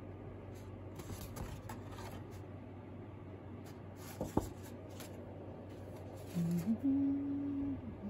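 Sheets of thick watercolour paper handled and rustled in bursts, with one sharp tap partway through. Near the end a few low, held notes that step up and down in pitch.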